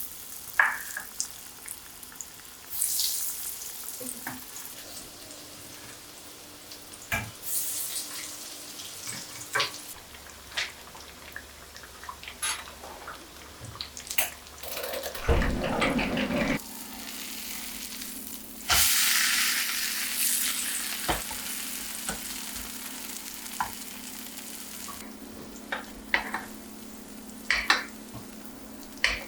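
Food frying in a pan: sizzling that swells in several bursts, with sharp clicks and taps of utensils. Just past halfway a low rumble is followed by a low steady hum.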